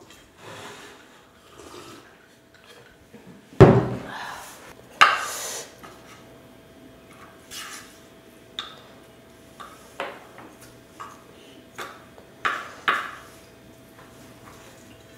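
Chopsticks clinking and scraping against a stainless steel bowl while mixing and lifting spicy cold noodles, as a string of short sharp clicks. A heavy thump about three and a half seconds in is the loudest sound.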